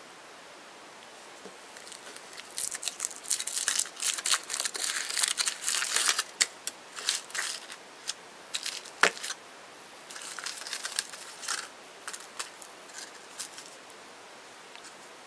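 Foil wrapper of a chocolate egg crinkling and tearing as it is peeled off. This is followed by a sharp crack about nine seconds in as the chocolate shell is broken open, then more small crackles as the pieces and foil are handled.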